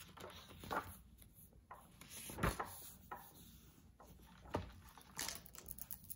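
Faint handling sounds: a hardcover notebook being opened on a stone countertop, with four or five brief knocks and rustles. The loudest is a soft thump about two and a half seconds in.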